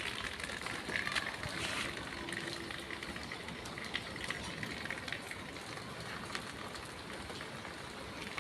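Rain falling steadily, with scattered sharp ticks of individual drops striking nearby surfaces.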